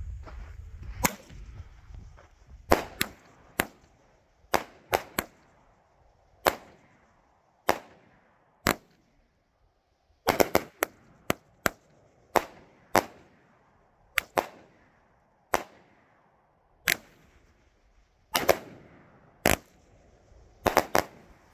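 Great Grizzly "Hammered" 200-gram, 21-shot consumer fireworks cake firing: a string of sharp bangs at uneven intervals, some in quick pairs and clusters, each dying away in a short echo.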